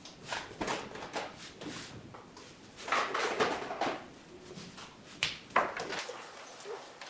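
Small parts clicking and rattling as they are handled and picked from a plastic parts bin, with a denser clatter about three seconds in and two sharp clicks a little after five seconds.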